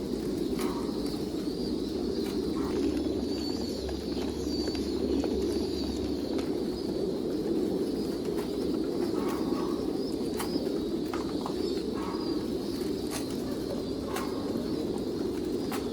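Many domestic pigeons cooing together in a continuous low chorus, with scattered faint clicks.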